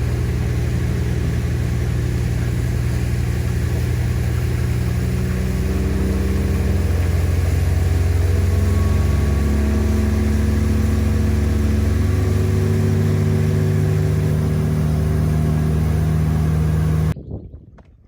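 A boat's motor running steadily under way, its engine note shifting slightly about six to eight seconds in, then cutting off abruptly about a second before the end.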